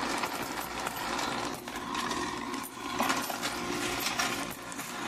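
A homemade coin counting machine running, with coins clinking rapidly as they drop through its PVC pipe chute into a bag of coins.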